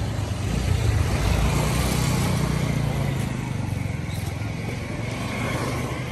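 Motor vehicle passing along the street, its engine noise building to its loudest about a second in and then slowly fading.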